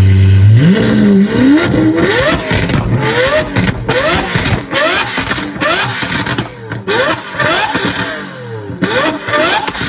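Lamborghini V12 engine running steadily, then revved hard about half a second in and blipped again and again, its pitch climbing and dropping about once a second.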